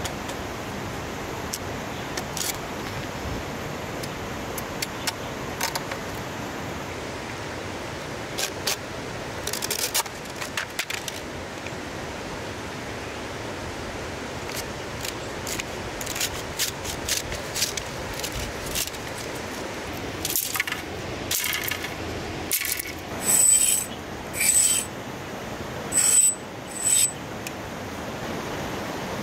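A machete and knife working green bamboo: scattered sharp cracks and knocks as the blade bites and splits the bamboo, then near the end four louder scraping strokes as a bamboo sliver is shaved. A steady rush of river rapids lies under it all.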